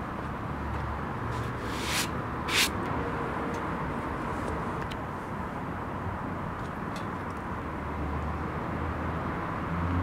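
Steady outdoor background noise with a faint low hum, broken by two short clicks about two and two and a half seconds in.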